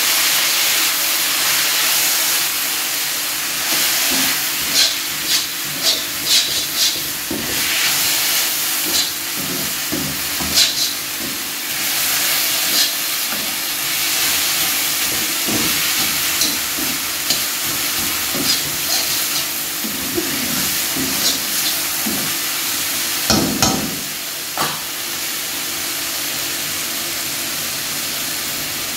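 Vegetables and noodles sizzling in a wok over a high flame, with a metal spatula scraping and clacking against the pan again and again as they are stir-fried; a last few louder clacks come near the end, after which only the sizzle goes on.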